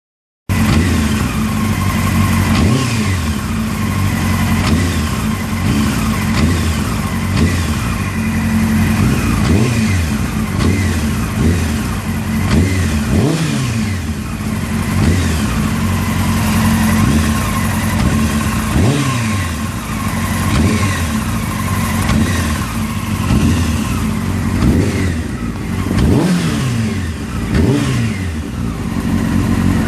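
Honda CBR600 F3's inline four-cylinder engine idling and being blipped again and again, the revs rising and falling every second or two, with a rattle that comes in as the throttle is opened from idle.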